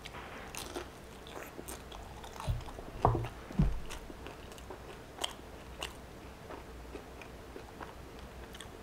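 Close-up bite into a crispy fried egg roll, the wrapper crunching, then chewing with short crackles throughout. The loudest crunches come about two and a half to three and a half seconds in.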